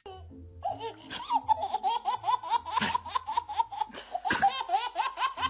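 Baby laughing in a rapid, unbroken string of short, high-pitched laughs, starting about half a second in.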